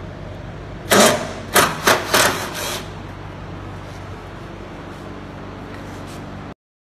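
Cordless driver run in about four short, loud bursts as it backs out fasteners on the Jeep Wrangler JK's front body panels, over a steady shop hum.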